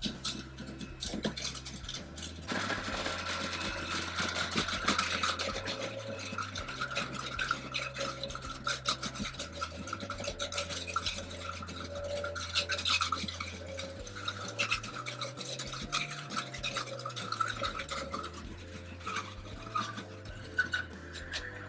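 Breville BJE510XL centrifugal juicer running on its lowest speed, its motor humming while strawberries are pushed down the feed chute and shredded on the spinning cutting disc. The shredding is a dense rasping crackle that gets louder a couple of seconds in.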